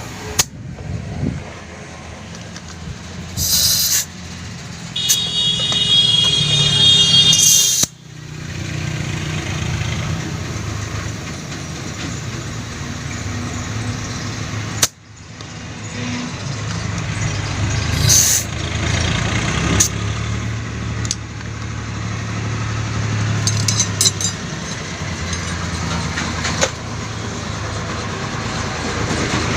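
Vehicle engines and traffic running, with a few short bursts of hissing and scattered clicks; the sound cuts off abruptly twice.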